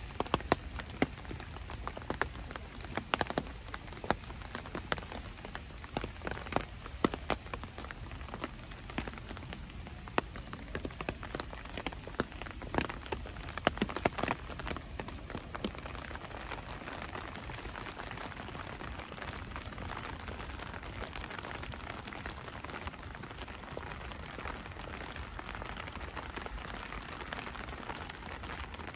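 Rain falling on the ground. For about the first fifteen seconds many separate drops land sharply, then it settles into a steadier, more even hiss.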